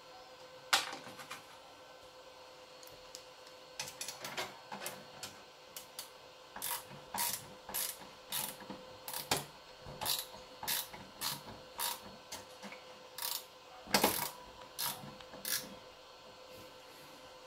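Parts of a crypto-mining machine being handled and fitted back together by hand: a run of sharp clicks and taps, with a louder knock about a second in and another near the end, over a faint steady hum.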